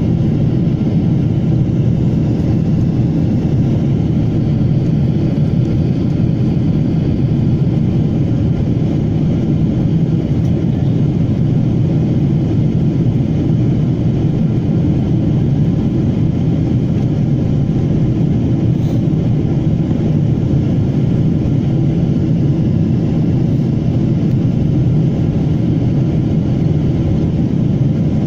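Steady drone of a jet airliner in flight, heard inside the cabin at a window seat beside the wing-mounted turbofan engine. It stays low, even and unchanging throughout.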